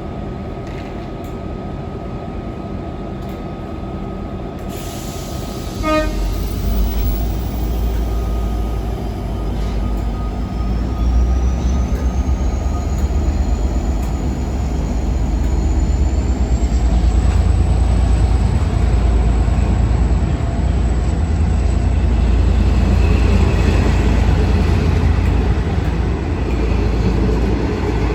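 Train running through close by with a heavy low rumble that builds and stays loud. There is a short horn toot about six seconds in, and a high whine rises in pitch for several seconds, then holds steady.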